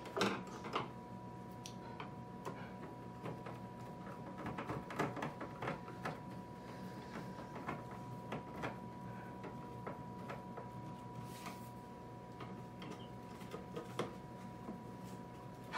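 Irregular clicks, taps and knocks of a screwdriver and hands working the plastic control unit and clear plastic lid of a Brinsea Ovation 56 EX incubator while its screws are driven in. A steady faint hum runs underneath.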